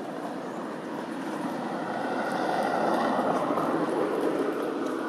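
Rushing noise of a passing vehicle, swelling to a peak about three seconds in and then fading.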